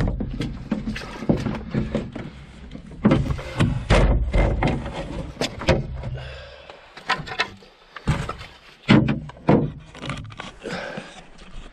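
A canoe being lowered off the shoulders and set down: a run of hollow thunks and knocks as the hull and wooden yoke bump the ground, with a heavy thump about four seconds in and another sharp knock near nine seconds.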